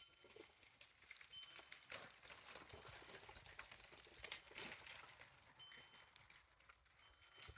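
Meltwater and bits of ice dripping and pattering from thawing tree branches in a forest, many small irregular drops and ticks like light rain, faint. A thin high note sounds briefly three or four times.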